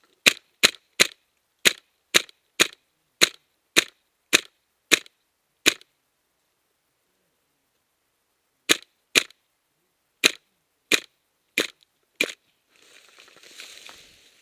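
Airsoft rifle firing single shots, sharp clacks about two a second: eleven shots, a pause of about three seconds, then six more. Near the end, rustling of gear and dry leaves as the shooter shifts.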